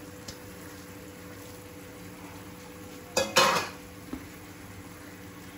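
Olive pickle frying gently in a pan with a quiet steady sizzle, and a short metal clatter about three seconds in as a steel dish beside the pan is moved.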